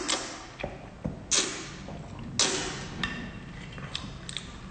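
Eating raw marinated octopus up close: wet slurping and mouth smacks as a tentacle is sucked in and chewed. There is a sharp click at the start, louder smacks about one and two and a half seconds in, and lighter clicks after.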